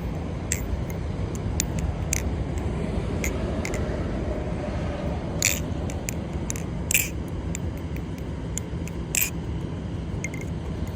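Balisong (butterfly knife) being flipped: irregular sharp metallic clicks and clacks as the handles swing round and strike the pins, with a few louder clacks, over a steady low rumble.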